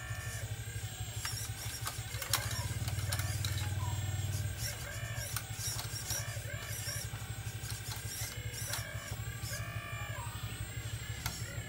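Radio-controlled model excavator working its arm and bucket: a steady motor drone with a whine that rises and falls in pitch as the arm moves. The drone swells for about two seconds shortly after the start.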